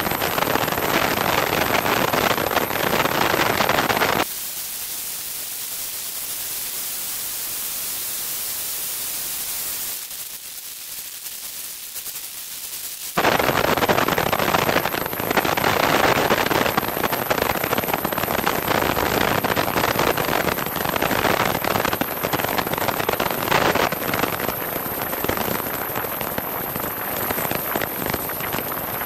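Heavy, crackling wind noise from the airflow buffeting a camera mounted under a Piper Cherokee's wing at speed. It drops sharply about four seconds in, goes quieter still about ten seconds in, and comes back loud about thirteen seconds in.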